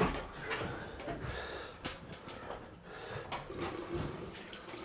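Water running from a tap into a bathroom sink in a small room, with a sharp knock at the start and a couple of clicks later on.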